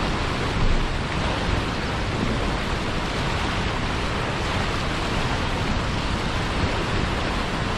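Sea surf: a steady, even rush of waves that holds at one level, with no separate breakers standing out.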